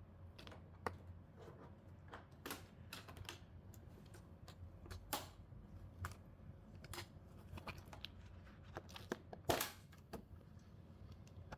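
Light, irregular clicks and crinkles of thin film sheets from the TV's backlight being handled and pulled loose, with one louder crinkle about nine and a half seconds in.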